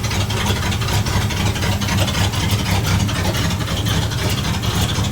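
1960 Dodge D100 engine idling steadily, with a fast, even ticking over its rumble: the noise that is still there, which the owner ties to the camshaft.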